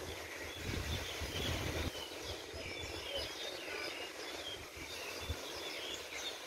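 Seaside ambience: a steady wash of surf and wind, with wind buffeting the microphone in the first couple of seconds. Small birds chirp repeatedly from about two seconds in.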